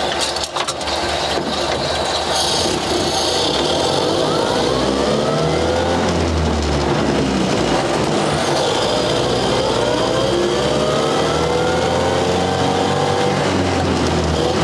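1929 Ford Model AA truck's four-cylinder side-valve engine heard from inside the cab as the truck pulls away and accelerates. Its rising whine climbs twice, broken by a gear change about seven seconds in.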